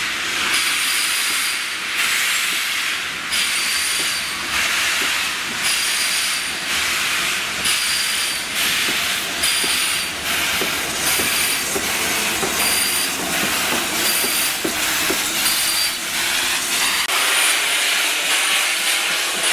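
BR Standard Class 7 'Britannia' 4-6-2 steam locomotive working its train slowly, steam hissing in repeated bursts about once a second. Near the end the hiss becomes steadier as steam blows from the open cylinder drain cocks.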